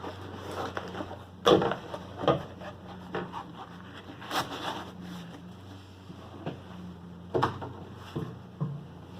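Diamond painting canvas being rolled up by hand: rubbing and rustling with several sharp knocks and taps, the loudest about a second and a half in.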